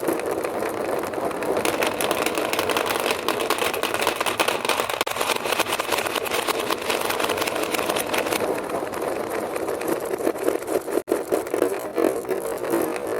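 Many marbles rolling and clattering down a marble run's ramps: a continuous rolling rumble with dense clicking, briefly broken once near the end.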